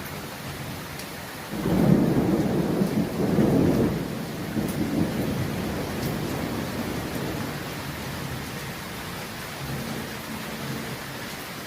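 Thunder in a rainstorm: steady rain throughout, then a rumble of thunder breaks in about a second and a half in. It is loudest for the next two seconds and dies away slowly over several more.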